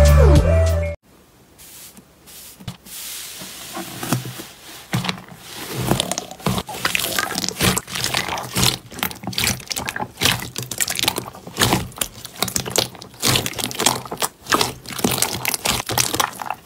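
A short bit of intro music cuts off about a second in; then a large mass of slime is pressed and kneaded by hand in a bowl, with irregular sticky crackling and popping that grows busier after a few seconds.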